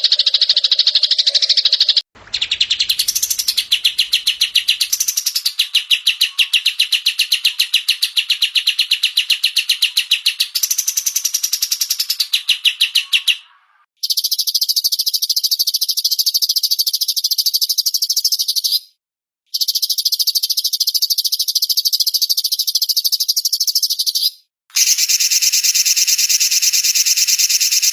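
Small cage songbirds chirping in fast, continuous high-pitched trills. The sound comes in several abrupt segments separated by brief silent gaps, like spliced recordings.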